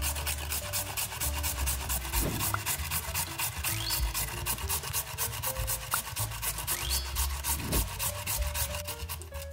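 Raw peeled potato grated on the coarse side of a stainless steel box grater, a quick, even rasping of stroke after stroke, over soft background music.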